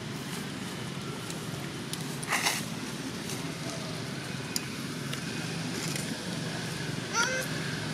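Steady low outdoor background noise, with a brief rustle about two and a half seconds in and a short rising call near the end.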